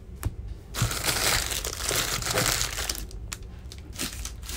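Empty foil trading-card pack wrappers crinkling as they are crumpled and gathered up by hand, for about two seconds, followed by a few light taps.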